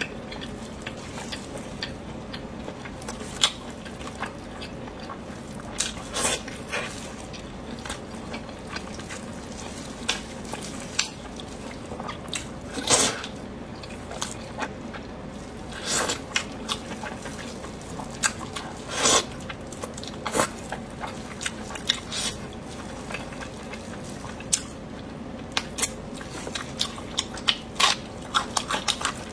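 Close-miked eating: chewing and biting with wet mouth sounds and scattered clicks, plus a few louder crunching bites, over a steady low hum.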